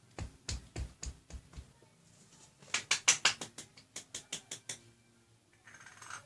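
Handling of plastic Play-Doh toy pieces: a quick run of clicks and light knocks, then a faster run of sharp clicks about three seconds in.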